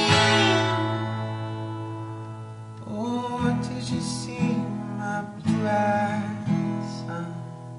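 Steel-string acoustic guitar playing the closing bars of the song. A strummed chord rings out and fades over the first few seconds. About three seconds in, a few more strums and plucked chords follow, then the last one dies away.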